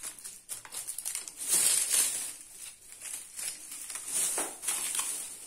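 Crinkling of plastic sweet wrappers and a plastic bag as wrapped sweets are handled and dropped onto a tray of nuts, in irregular crackles. The loudest come about a second and a half in and again past four seconds.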